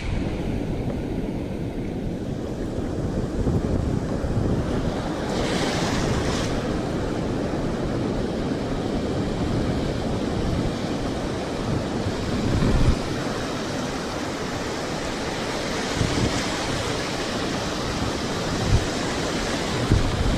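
Ocean surf washing on the beach, with wind buffeting the microphone in low, rumbling gusts.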